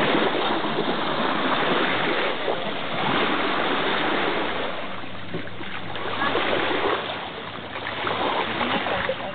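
Rushing outdoor noise of wind and water at the shoreline, swelling and easing every two to three seconds, with a faint steady low hum underneath.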